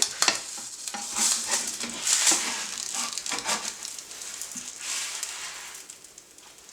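A crepe frying in an oiled, buttered frying pan: an irregular sizzling hiss with crackles, swelling a few times and fading toward the end.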